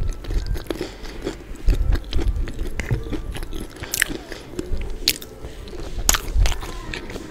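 Close-miked ASMR eating: a person chewing and biting food held close to the microphone, with crunchy bites and wet mouth sounds and a few sharp clicks.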